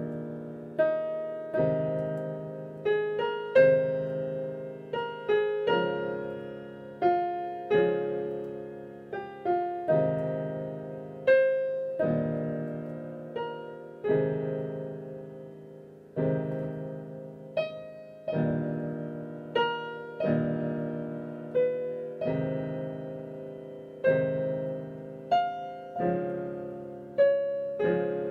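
Solo piano music: a slow, gentle melody over chords, each note or chord struck about once a second and left to ring and fade.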